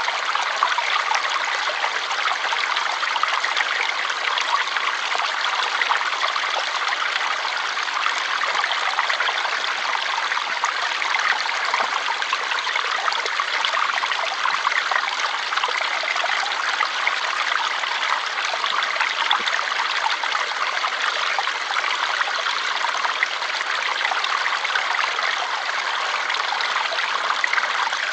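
Water flowing in a steady, unbroken rush with fine trickling detail and little deep rumble.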